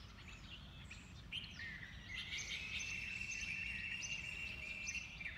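Birds chirping and calling, with short high chirps scattered throughout. A long steady high note is held for about three seconds from around two seconds in, over a low ambient rumble.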